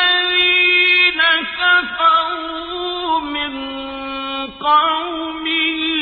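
Quran recitation: a single voice chanting Arabic verse in melodic tajweed style, holding long drawn-out vowels with ornamented turns in pitch and short breaks between phrases.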